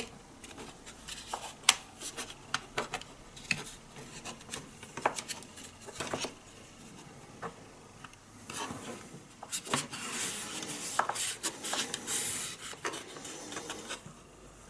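Hard plastic model-kit parts of a 1/72 Airfix Heinkel He 111 clicking and tapping as the lower wing half is fitted and pressed onto the upper wing. About two-thirds of the way through, fingers rub and scrape along the plastic wing joint for a few seconds.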